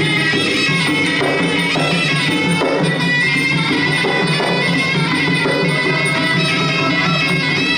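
Traditional Khmer boxing fight music: a reedy sralai oboe plays a continuous melody over hand drums and small cymbals.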